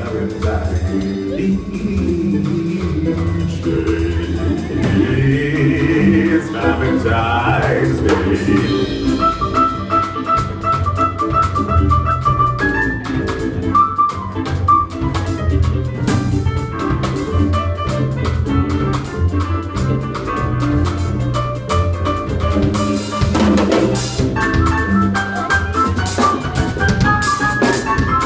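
Live jazz combo playing an instrumental passage with no vocals. An upright bass carries the low notes, a drum kit keeps time with cymbals, and an electric guitar picks out a melody line from about a third of the way in.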